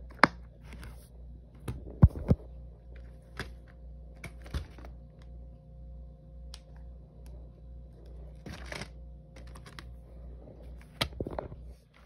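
Plastic DVD cases being handled: scattered sharp clicks and knocks, the loudest a pair about two seconds in and a quick cluster near the end, over a steady low hum.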